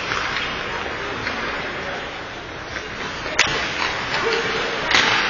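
Ice hockey rink sound: skates scraping on the ice and distant players' voices, with two sharp clacks, one about three and a half seconds in and one near the end.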